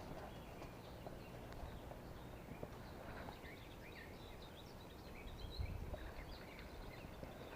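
Faint woodland ambience: scattered short bird chirps over a low steady rumble, with a brief low bump about five and a half seconds in.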